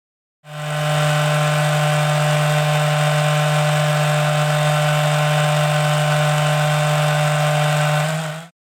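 Electric motor of a HANDIT sanding and dust-extraction vacuum set running steadily, a constant hum with a hiss. It starts about half a second in and cuts off shortly before the end.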